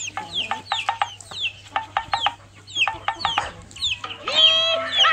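Chickens clucking, with many short, high, falling calls repeating quickly. Near the end comes one longer drawn-out call.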